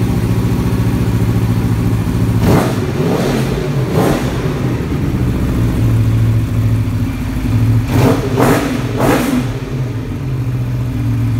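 Aprilia RSV4 superbike's V4 engine idling, blipped twice a couple of seconds in and then revved three times in quick succession about eight seconds in, each rev rising and falling back to idle. It has the deep, solid V-engine note.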